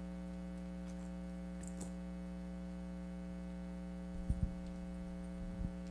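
Steady electrical mains hum, with a few soft low thumps about four seconds in and again near the end.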